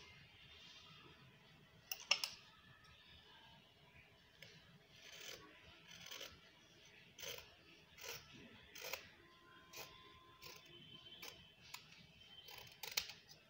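Scissors cutting through folded cloth, a faint snip roughly every second at an uneven pace.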